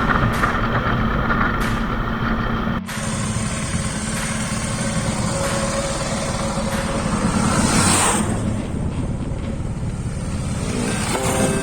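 Motorcycle engine running on the road. The sound breaks off abruptly about three seconds in and picks up again, and a swell of noise rises and falls around two-thirds of the way through.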